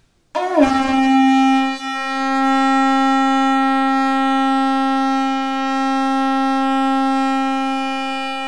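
A bottle gourd shell conch (shankh) blown as one long held note. It starts about a third of a second in with a short scoop up in pitch and wavers briefly near two seconds, then holds steady.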